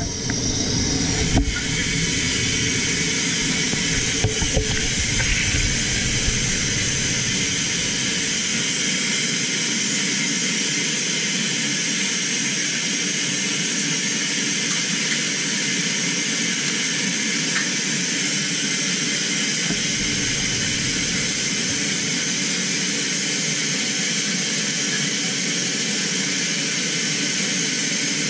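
Loud, steady rush of air through a hyperbaric decompression chamber's valves as its pressure is changed.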